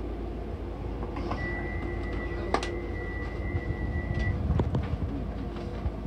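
Docklands Light Railway train standing at the platform with its steady low hum, and a single high electronic beep held for about three seconds. A sharp click sounds partway through and a few knocks come near the end.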